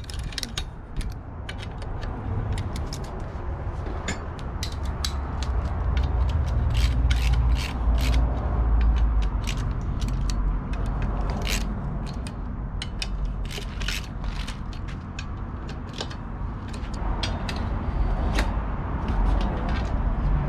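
Irregular metallic clicks and ratcheting from hand work on a BMX bike during assembly, over a steady low rumble.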